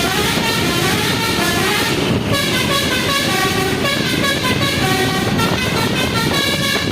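A bus's multi-tone 'telolet basuri' horn playing a rapid melody of short notes that step up and down in pitch, over the rumble of the engine and street noise.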